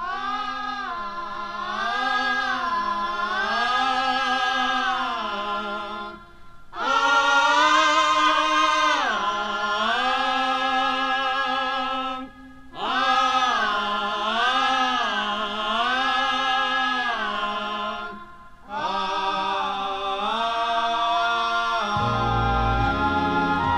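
A Chassidic melody opening on an LP recording with unaccompanied singing: four long sung phrases with brief pauses for breath between them. Accompanying instruments come in with low notes near the end.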